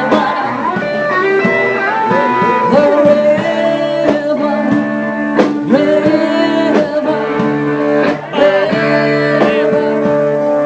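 Live band music with a prominent guitar, in a blues-like style.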